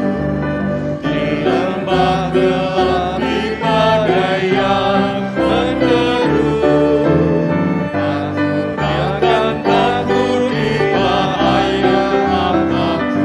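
Voices singing a congregational hymn in Indonesian, accompanied by piano and organ, with the organ holding sustained bass notes that step from chord to chord.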